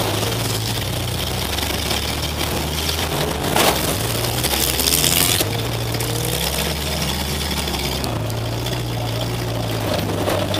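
Demolition derby car's engine running loud, heard from inside the stripped cab, its pitch rising and falling as the driver works the throttle. About three and a half seconds in there is a sharp crash, followed by about a second of harsh rushing noise.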